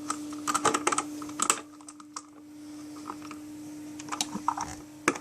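Light clicking and tapping of hard plastic vacuum-cleaner parts and a screwdriver being handled, in a quick cluster over the first second and a half and again from about four seconds in.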